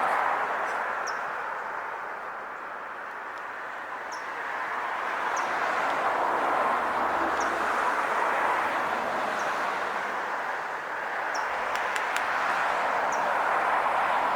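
Rushing noise of passing traffic that swells and fades over several seconds, with a small bird's short, high, falling chirps every second or two.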